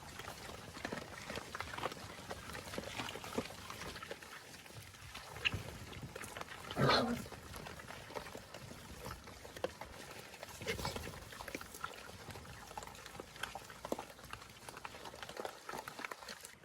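Pigs foraging: steady crackling and rustling, with one short, louder animal call about seven seconds in.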